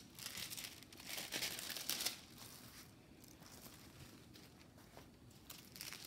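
Diamond painting canvas and plastic packaging rustling and crinkling as they are handled, in bursts over the first two seconds and again near the end.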